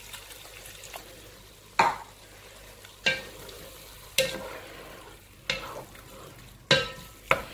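Wooden spoon stirring mutton mince in a pot after water has been added, scraping against the pot about once a second, six times, over a low frying sizzle.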